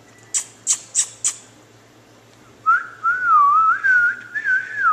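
Four quick, sharp clicks, then a person whistling a wavering, warbling tone that rises and falls for about two seconds.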